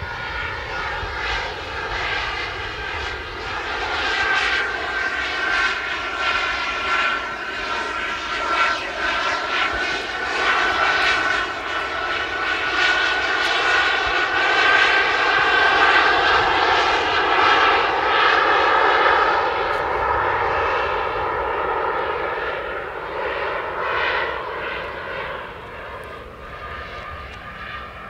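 Four JetsMunt M166 model jet turbines on a large radio-controlled Airbus A380 running in flight with a steady high whine. The sound swells as the model passes, loudest about midway, then fades toward the end.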